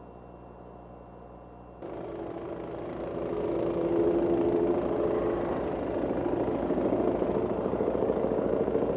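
An engine running steadily with a fast, even pulse. It cuts in suddenly about two seconds in over a faint steady hum.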